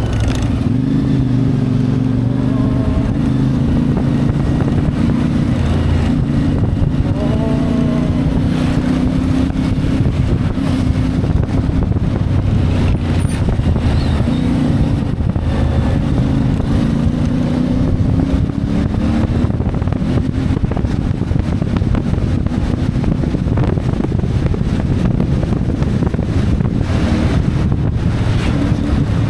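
CFMoto 450MT's parallel-twin engine running under way, its pitch rising and falling several times with throttle and gear changes.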